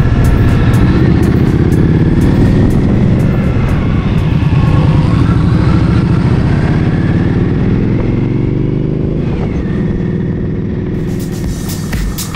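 Motorcycle engine running on the road, its pitch rising and falling with throttle and gear changes, fading somewhat near the end.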